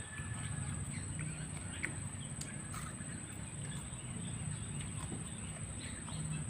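Black-naped orioles calling, heard as scattered short calls, over a steady high-pitched hum.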